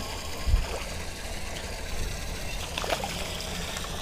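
Hooked fish thrashing and splashing at the water's surface beside the boat, with a low thump about half a second in.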